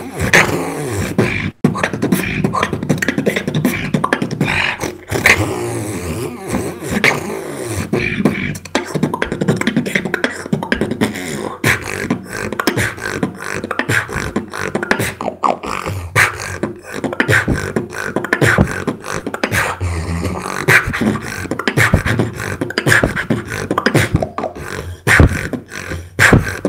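A beatboxer performing a continuous solo routine: rapid vocal percussion of kick, snare and hi-hat clicks mixed with voiced bass sounds, sent over online voice chat.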